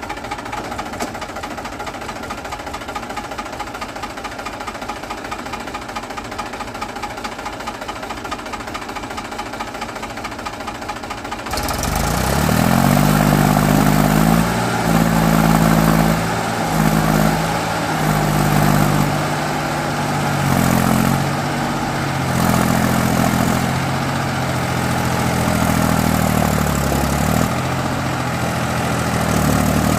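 Mahindra tractor's diesel engine running steadily. About eleven seconds in, the sound jumps louder and the engine revs up and down again and again, straining under load as it tries to haul a heavily loaded trolley out of mud.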